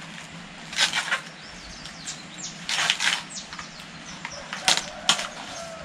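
Husks being torn and stripped off fresh ears of corn by hand: papery rustling and tearing in a few short bursts, at about one, three and five seconds in.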